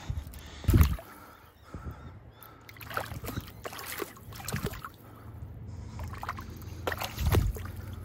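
Shallow river water sloshing and lapping around a hand-held trevally as it is held in the current to revive it before release, with scattered small splashes. Two louder low thumps, about a second in and near the end.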